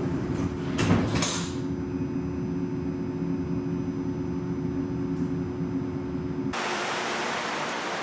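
Type 5 MAX light-rail car's HVAC (Siemens S70) running at low fan speed: a steady hum with a few held tones, with two clunks about a second in. About six and a half seconds in it cuts to the same system at high fan speed, a steady rush of air without the hum.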